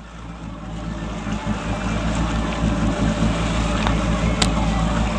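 Charter fishing boat's engine running steadily under wind noise, fading in over the first second or two. A few sharp clicks stand out about four seconds in.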